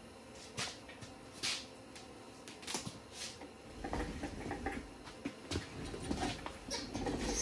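Workshop handling noises: an extension cord being pulled in and handled, with a few short rustles and light knocks, then footsteps and small knocks from about four seconds in.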